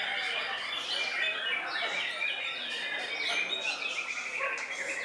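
Several white-rumped shamas (murai batu) singing over one another: a dense, unbroken mix of whistles, trills and chatter.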